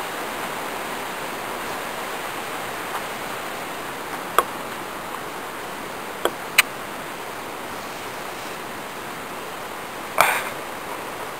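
Steady rushing of a creek's flowing water, an even hiss-like noise, with a few faint short clicks in the middle and a brief louder sound near the end.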